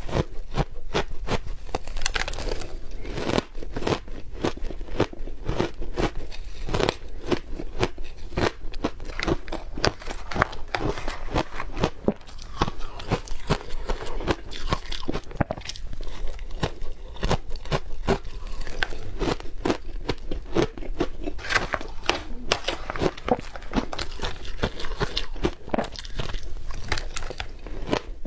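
Close-miked biting and chewing of powdery frozen ice ('yellow powdery snow'): a dense, unbroken run of crisp crunches and crackles.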